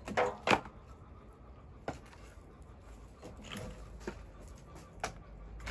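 Firewood logs knocking: two loud wooden knocks close together near the start, then a few lighter knocks about a second apart.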